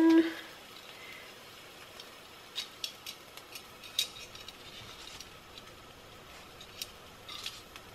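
Bread frying butter-side down in a pan, a faint sizzle with a few light crackles scattered through.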